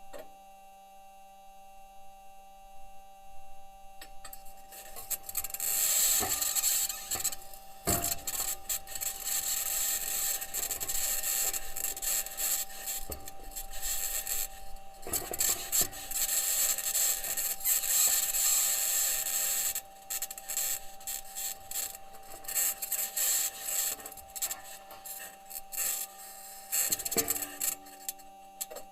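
Perseverance rover's wheels grinding and scraping over rocky Martian ground, recorded by its onboard microphone, with several sharp knocks and clanks. Steady electrical hum tones run underneath, from the rover's own electronics.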